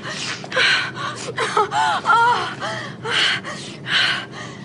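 A woman gasping in a string of sharp, breathy bursts, with wavering moans near the middle: the orgasmic shudder that follows her sneeze.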